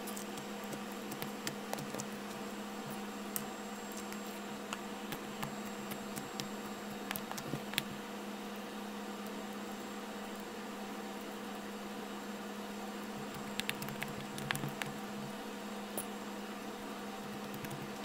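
Blue clear slime with sequins being squeezed and poked by hand, giving scattered faint clicks and small squishes in a sped-up recording. A steady hum and hiss lie underneath.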